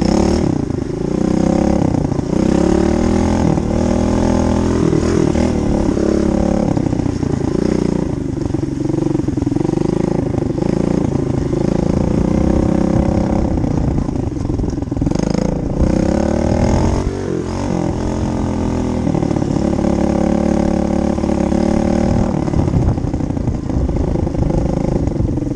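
A small off-road motorcycle engine running while being ridden, its pitch rising and falling again and again as the throttle is opened and closed.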